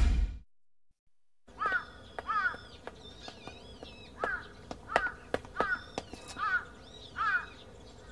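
A crow cawing repeatedly, about seven caws at irregular intervals, starting about a second and a half in after a brief silence, with faint higher warbling notes in the background.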